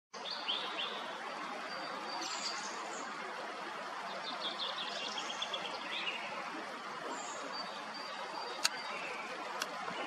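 Song thrush singing short phrases, including a run of quickly repeated high notes about halfway through, over the steady rush of a spring stream. Two sharp clicks near the end.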